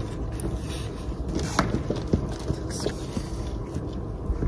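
Plastic plant pots and potting soil being handled during repotting of geraniums: scattered light taps, scrapes and rustles as soil is tipped out of a pot and a plant is eased from its pot.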